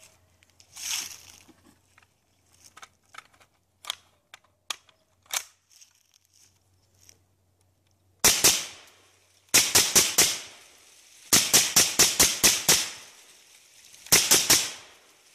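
Suppressed IWI Tavor SAR bullpup rifle in 5.56/.223 firing semi-automatic through a Gemtech Trek suppressor: a few light handling clicks first, then a single shot about eight seconds in, followed by three quick strings of rapid shots.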